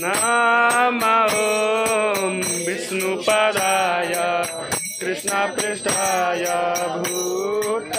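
Group of voices chanting a Hindu devotional kirtan song, with brass hand cymbals (karatals) and hand claps keeping a steady beat.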